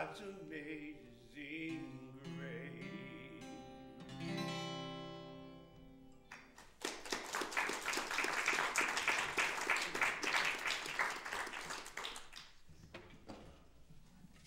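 Acoustic guitar and a woman singing as a song ends on a last strummed chord that rings out and fades. About six seconds in, applause starts and runs for several seconds before dying away.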